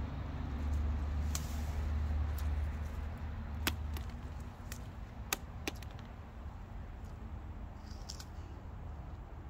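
A motor vehicle's engine rumbling low and steady, fading out about four seconds in, with a few sharp clicks and snaps scattered throughout.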